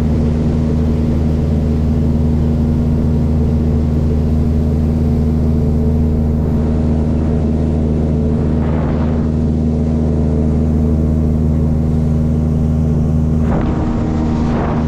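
Boat outboard motor running at a steady speed, with the boat underway. Two brief hissy swells rise over the engine, about two-thirds of the way through and near the end.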